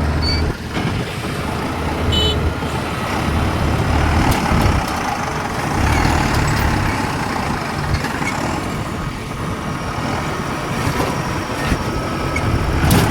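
Kubota DC-70 combine harvester running: a steady, loud diesel engine rumble with machinery clatter, and a sharp knock near the end.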